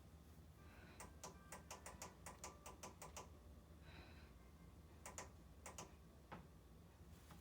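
Faint run of quick, light clicks, about a dozen in two seconds, then a few more scattered clicks later on.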